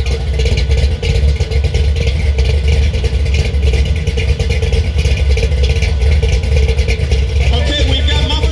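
Car engine running at a steady idle with a deep, loud exhaust rumble.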